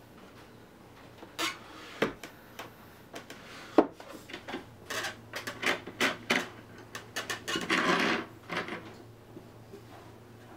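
Wooden workpieces and hand tools being handled: a run of irregular knocks and clicks, one sharp knock about four seconds in, and a short stretch of rubbing just before eight seconds.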